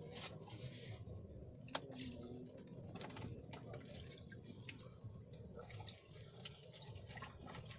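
Faint water dripping and lapping, with many small scattered clicks; one sharper click comes a little under two seconds in.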